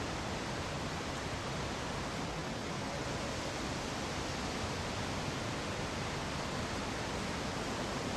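Steady, even noise with no distinct sounds in it, reaching from deep rumble up to hiss.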